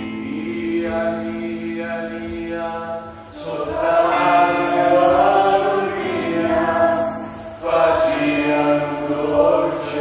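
Live chanted singing over a steady held drone; the voice swells louder a little over three seconds in and again near eight seconds.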